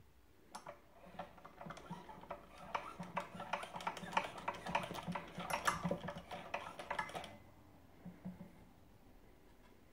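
Cut-away model steam engine turned by hand at the flywheel, its piston, valve and governor linkage clattering in rapid, irregular clicks. The clatter stops about seven seconds in, with a couple of faint clicks after.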